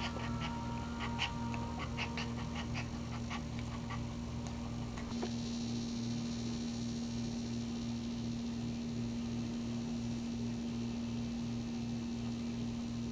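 Maltese in labor giving short, soft whines during the first few seconds, over a steady low hum.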